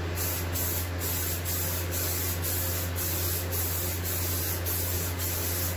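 Rust-Oleum Peel Coat aerosol can spraying in a steady hiss, laying down a wet final coat, over a steady low hum.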